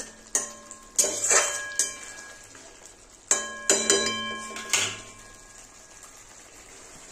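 Metal spatula clinking and scraping against a metal kadai while stirring thick spinach gravy: about eight ringing knocks in two clusters. After about five seconds they give way to a faint steady hiss of the gravy simmering.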